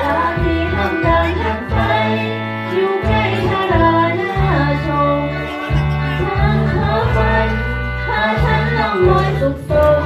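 Background music: a song with a sung melody over sustained low bass notes that change about once a second.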